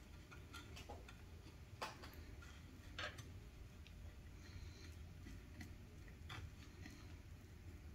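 Faint, scattered soft clicks and scraping of hands pressing and turning a plantain patty in breadcrumbs on a ceramic plate, the most distinct about two and three seconds in.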